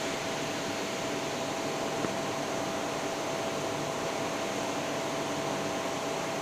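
Steady hiss of a TIG welding arc, with a thin steady whine running through it.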